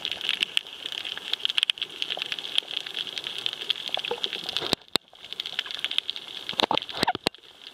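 Dense crackling of many tiny clicks heard underwater over a coral reef, the reef noise of snapping shrimp. It dips briefly about five seconds in, then carries on.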